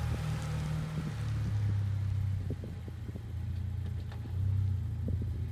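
Acura TSX's 2.4-litre four-cylinder engine and exhaust as the car pulls away from the curb and drives off, a low steady rumble that dips briefly about midway.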